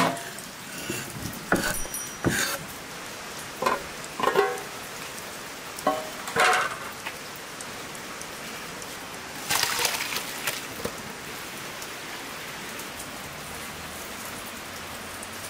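Kitchen handling sounds over a steady background hiss: scattered knocks and ringing clinks of cookware as food is tipped from a wooden cutting board into a glass bowl and metal pans and pots are handled, with a longer clatter about ten seconds in.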